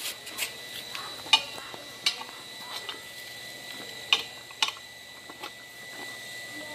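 Steel tyre lever clinking and scraping against a motorcycle's cast wheel rim as a tubeless tyre's bead is levered back onto it: irregular sharp metal clicks, several over a few seconds.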